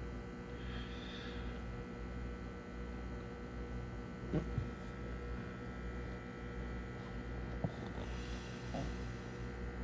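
Steady electrical hum from the aquarium's pump, with a couple of faint clicks.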